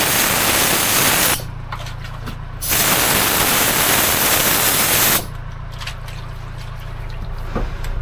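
Two long bursts of spray hiss, the first about a second long and the second about two and a half seconds, as a protective coating is sprayed onto welded metal. A steady low hum runs underneath.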